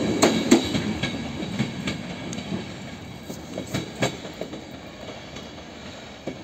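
Passenger train coaches rolling away down the line, wheels clicking over the rails with a low rumble that fades steadily as the train recedes. The sharpest clicks come in the first second.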